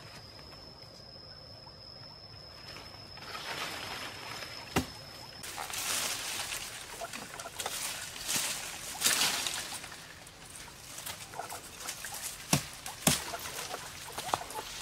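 Leaves and brush rustling and crackling as a man pushes through forest undergrowth with a knife. There are a few sharp knocks, two of them close together near the end.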